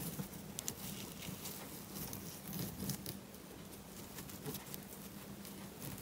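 Faint scratchy rustling and small ticks of jute twine dragged through loops by a metal crochet hook, as single-crochet stitches are worked around a rope cord. A steady low hum runs underneath.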